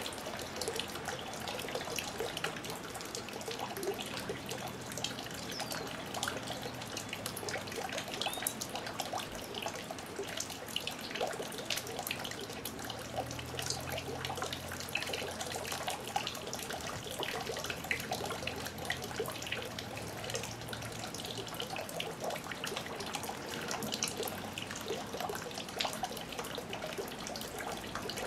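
Steady rain: a dense patter of raindrops, with a soft low hum that swells and fades a few times underneath.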